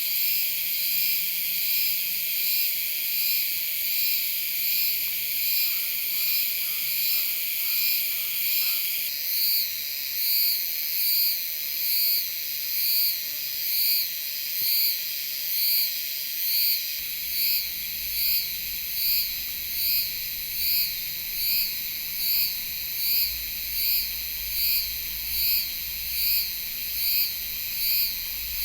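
Lai's spring cicada (Euterpnosia laii) singing: a loud, high, shrill buzz that pulses evenly about three times every two seconds, the pulses growing sharper and more distinct about a third of the way in.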